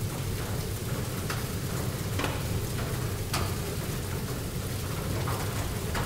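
Library room ambience: a steady low rumble and hiss, with a few soft taps scattered through it.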